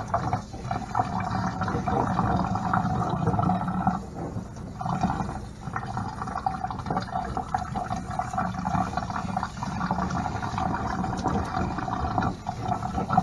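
Water from a kitchen sink's pull-down sprayer running steadily through long dreadlocks and splashing into a stainless steel sink as the hair is wetted, the flow breaking off briefly about four seconds in.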